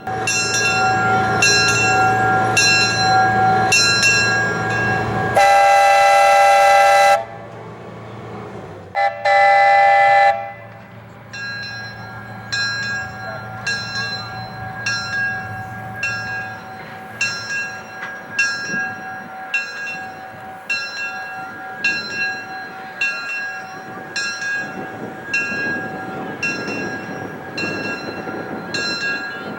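Buckeye three-chime steam whistle sounding two blasts over a steam locomotive's bell. The first blast is about two seconds long and the second a little shorter. The bell rings steadily, about three strokes every two seconds, before and after the blasts.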